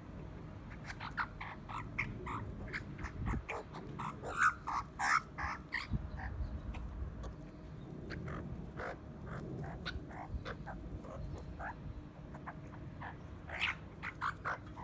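Australian magpies calling in short, rapid, harsh notes, in a busy burst over the first several seconds and again near the end.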